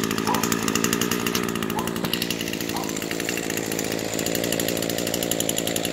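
Small petrol lawn-equipment engine running steadily at a constant speed.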